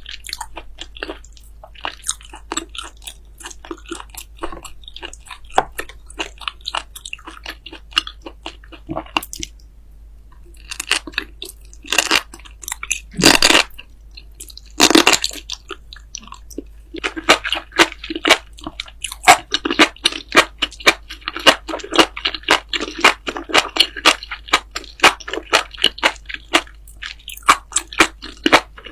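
A person biting and chewing crunchy food close to the microphone: rapid crisp crunches, with a brief pause before the middle and a few louder, longer crunching bites a little under halfway through, followed by steady dense chewing.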